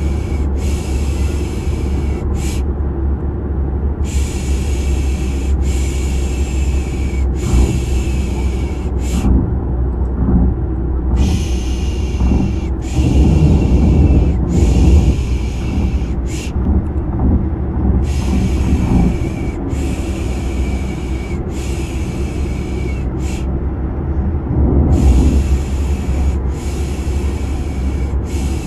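A steady low car rumble, like road and engine noise inside a moving car, with a rhythmic shushing 'pşşş' laid over it to lull a baby to sleep. The shushes come in groups of four or five long pulses, each group ending with a short one, with a brief pause between groups.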